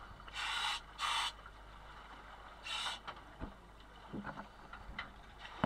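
Air hissing from a diving regulator in three short bursts, two close together and a third about two seconds later, as the regulator is breathed and purged in a pre-dive check. Faint knocks and clicks follow.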